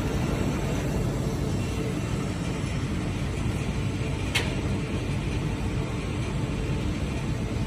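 Monofilament extrusion line running with a steady mechanical noise. A single sharp click about four seconds in.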